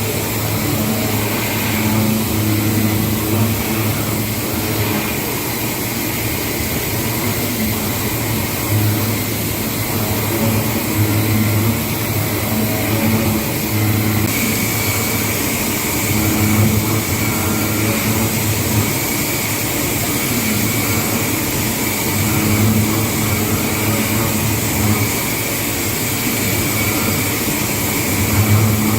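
CNC machine running a cutting job: a steady mechanical hum with an uneven low throb and a high whine that grows clearer about halfway through.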